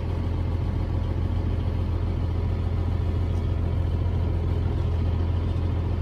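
Semi truck's diesel engine running at low speed, a steady low drone heard inside the cab.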